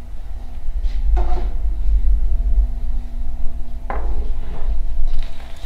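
A low rumble, with a few knocks and light clatter as small items are set down on a wooden workbench; the sharpest knock comes about four seconds in.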